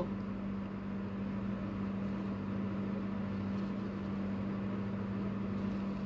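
A steady low hum with a soft, even hiss, unchanging throughout.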